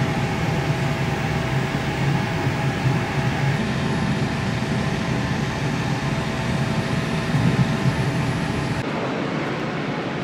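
Steady rumble and hum of a moving train heard from inside the carriage, with faint steady whining tones over it. About nine seconds in it gives way to a thinner, lighter background.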